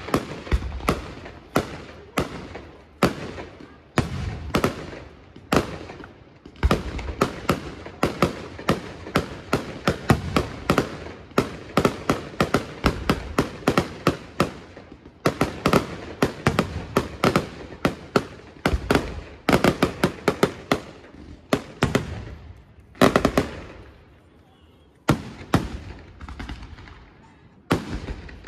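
Aerial fireworks going off in rapid succession: many sharp bangs, several a second, each trailing off. The barrage thins to a short lull about 24 seconds in, then picks up again.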